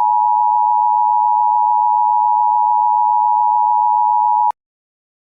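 Emergency Alert System attention tone: one steady, loud electronic tone that cuts off sharply with a click about four and a half seconds in.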